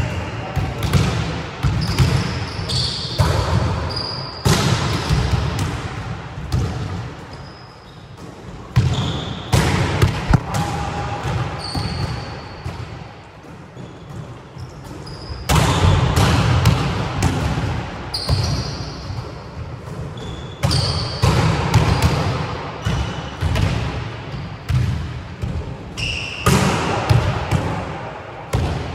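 Volleyballs being struck by hands and bouncing on a wooden sports-hall floor, a string of sharp irregular slaps and thuds that ring in the hall, with short high squeaks of shoes on the floor.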